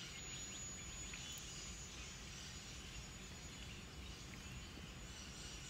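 Faint, steady outdoor background ambience, with no distinct sound standing out.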